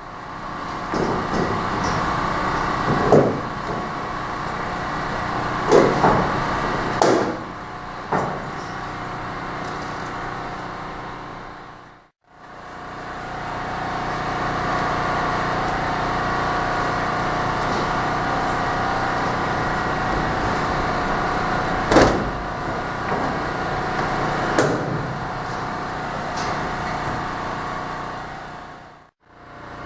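A steady mechanical hum runs under sharp snaps of rivets being set, a few at a time.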